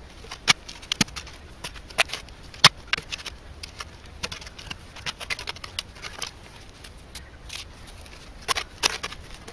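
Spade digging in soil: the steel blade cutting and scraping into the earth of the hole, with clods of soil dropping onto a spoil heap, heard as a run of irregular sharp scrapes and knocks.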